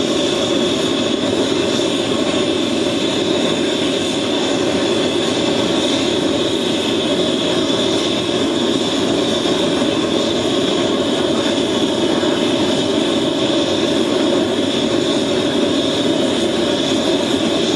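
A forge running with a steady, unbroken rushing noise as the blade heats in it.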